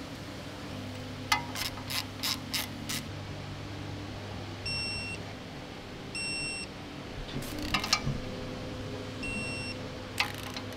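Snap-on digital torque wrench tightening flexplate bolts: quick ratchet clicks, then three short electronic beeps, each about a third of a second long, that signal the set torque has been reached. More ratchet clicks come between and after the beeps.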